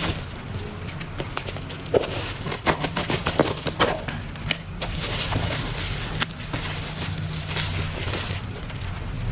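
Clicks and rattles of plastic toy train parts being handled, over a steady low hum.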